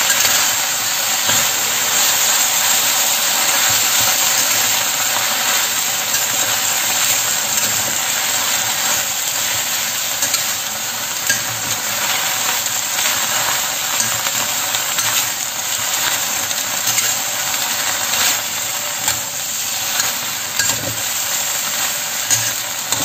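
Sweet potato leaves stir-frying in hot oil in a stainless steel wok: a steady sizzling hiss, with now and then the scrape and clack of a metal spatula as the leaves are turned.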